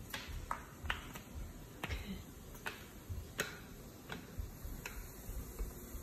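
Sharp, irregular clicks and taps, about nine of them, spaced half a second to a second apart.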